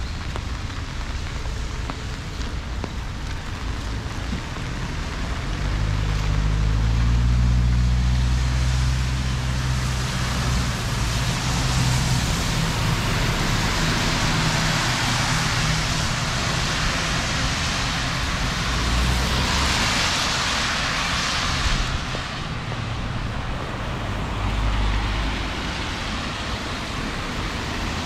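Heavy rain falling steadily, with a motor vehicle passing on the wet road: a low engine rumble rises about a fifth of the way in, and the hiss of tyres on wet pavement swells through the middle and cuts off about three quarters of the way in.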